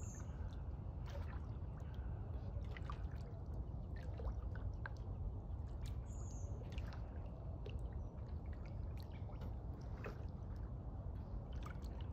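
Water dripping and trickling against a kayak, with many small splashes and clicks over a low steady rumble. Two short, high, falling bird chirps, one at the start and one about six seconds in.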